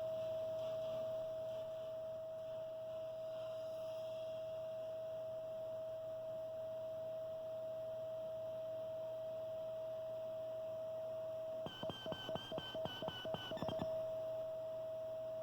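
Electrical noise from a Marantz CD-73's CDM0 transport leaking into its muted left speaker while a CD plays: a steady whine over a faint low hum, interrupted by about two seconds of rapid ticking roughly 12 seconds in. The uploader takes it for pickup from the spinning disc and the laser lens, perhaps through a grounding fault.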